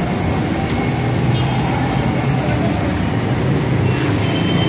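Dense, slow street traffic: engines of cars, vans and motorcycles running together in a steady din, with a thin high whine above it through the first half.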